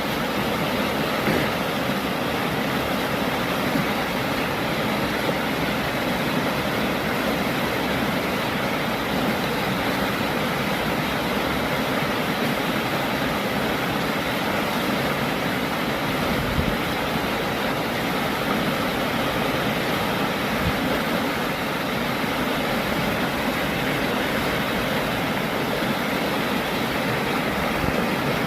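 Sea surf: a steady, even rushing roar with no pauses.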